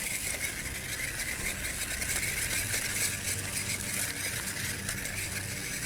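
1/18-scale RC rock crawler's small electric motor and gearbox whirring steadily as it drives, with light rattling from the truck over the rocks and ice.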